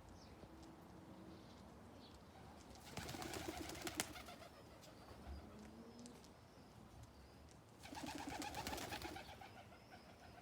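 Domestic pigeons cooing: two rhythmic, pulsing coos, about three seconds in and again near eight seconds, over faint softer calls. A single sharp click comes during the first coo.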